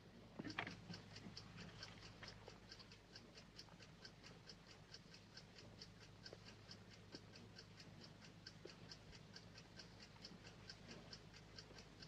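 Clock ticking faintly and evenly, about four ticks a second, over a low hum, with a few soft knocks about half a second in.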